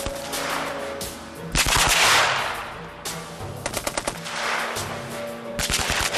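A 1916 Vickers water-cooled .303 machine gun firing several short bursts of rapid shots, the heaviest burst about two seconds in.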